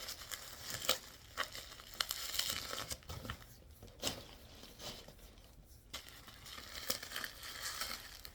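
Bubble wrap and plastic packing being pulled out of a shipping box and crumpled, irregular crinkling and tearing with a couple of brief pauses.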